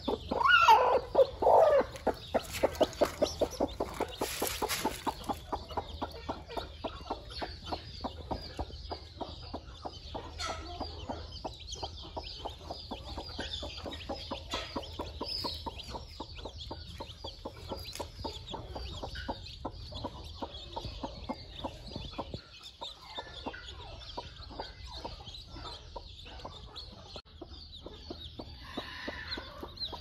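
Native hen brooding her newly hatched chicks, clucking in a long, steady string of short, low clucks, louder for the first few seconds. Faint high peeping of the chicks sounds above the clucks.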